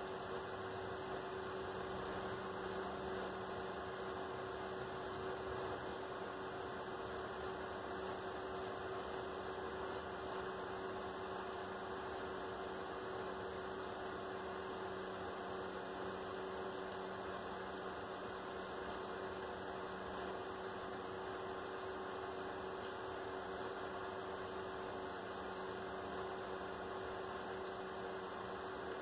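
Steady electrical hum over a faint hiss, unchanging throughout.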